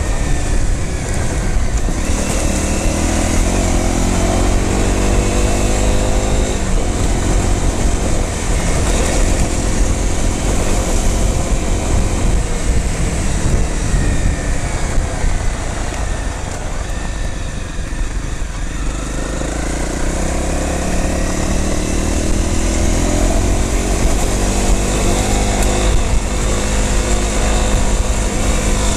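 Off-road motorcycle engine running under way, its revs climbing in steps as it pulls through the gears. It eases off about two-thirds of the way through and climbs again, over a steady rush of wind on the microphone.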